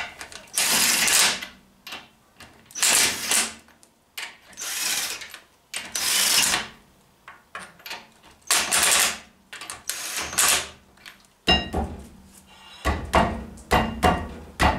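Impact wrench on a car's lug nuts, run in about six short bursts as it spins them on, then hammering rapidly as it tightens them near the end.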